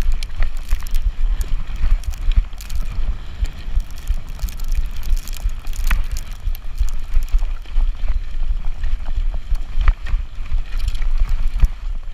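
E-bike riding fast over a rough trail: wind buffets the handlebar-mounted microphone in a constant low rumble, with frequent knocks and rattles from the bike jolting over bumps.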